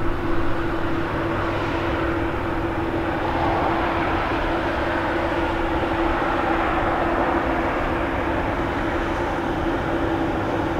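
Twin GE90 jet engines of an Air France Boeing 777-200ER on landing approach: a steady rushing jet noise with a constant low hum, swelling slightly midway.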